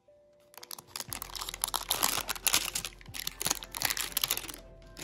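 Dense, rapid crinkling and clicking from craft materials being handled at a work table, starting about half a second in and stopping shortly before the end, over faint background music.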